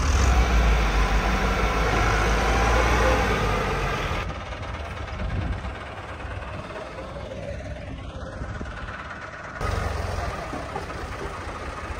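Tractor engine running with a steady low rumble, loud at first, then much quieter after a sudden drop about four seconds in, and louder again near ten seconds.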